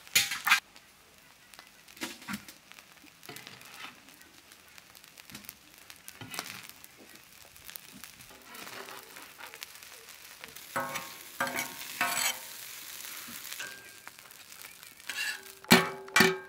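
Metal spatula scraping and scooping rice across a hot iron griddle, with light sizzling in between. About a second before the end come a few loud metallic clanks with ringing, the spatula knocking against a steel pot.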